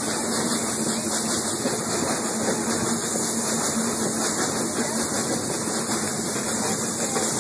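Steady running noise of a heritage train heard from an open passenger car: an even rushing hiss of wheels and air, with a constant low hum underneath.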